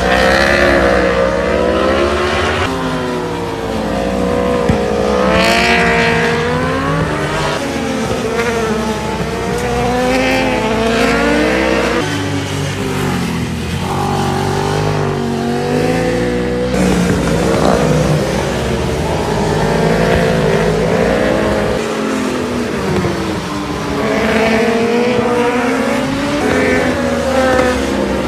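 Racing superbikes passing one after another through a run of bends, several engines overlapping. Their pitch rises and falls repeatedly as the riders accelerate and ease off.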